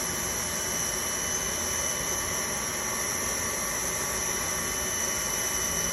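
Steady hiss with a constant high whine from a hot-air vinyl welding gun's blower left running.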